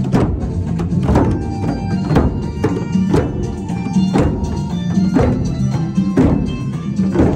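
A group of djembe hand drums played together in a steady rhythm, with a heavy stroke about once a second and quicker, lighter slaps between.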